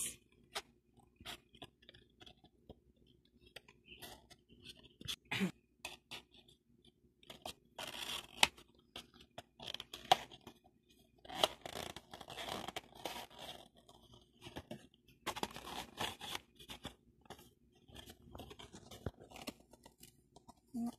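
Paperboard mug box being folded by hand: irregular rustling, creasing and scraping of the card, with scattered sharp clicks as the flaps are bent and tucked in.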